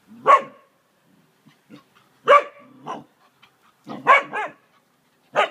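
Dogs barking while play-fighting: short, loud barks a second or two apart, with two in quick succession about four seconds in.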